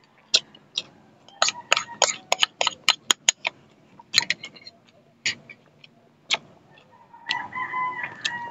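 Close-up eating sounds: a quick run of sharp wet clicks and smacks from sipping, chewing and a metal spoon against a ceramic bowl. Near the end, a drawn-out animal call sounds in the background.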